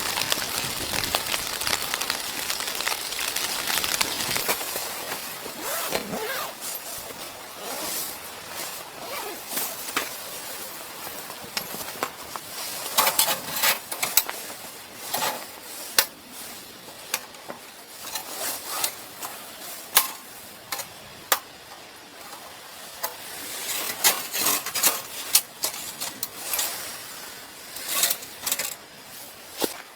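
Scattered light clicks, clinks and knocks of small hard objects being handled, some close together in quick runs, over a faint hiss that fades during the first few seconds.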